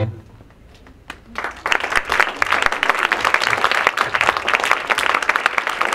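Audience applauding, starting about a second and a half in after a short lull and going on steadily.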